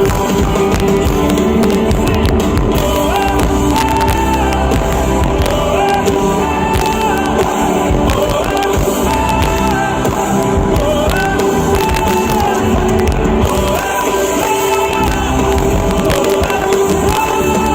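Live band playing an amplified pop-rock song with a singer's voice over drums.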